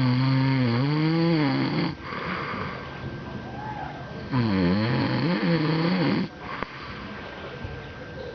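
Loud snoring: two long, drawn-out pitched snores about two seconds each, one at the start and one about four seconds in, their pitch dipping and rising, with quieter breathing between.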